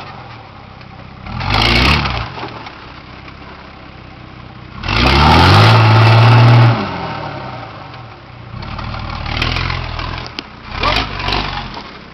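Nissan Patrol GR Y60's turbo-diesel engine revving hard in repeated bursts under load while the rear wheels spin on the slope. There is a short rev near the start, a long, loud one about five seconds in as dirt is thrown up, and smaller revs near the end.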